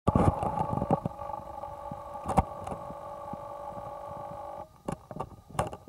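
Camcorder zoom motor whining in several steady tones while the lens zooms in, cutting off suddenly near the end, with knocks and bumps of the camera being handled throughout.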